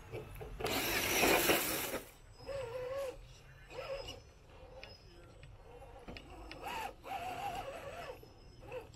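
Scale RC rock crawler's tires spinning and churning loose dirt, with the motor and drivetrain whirring, in one loud burst about a second long near the start.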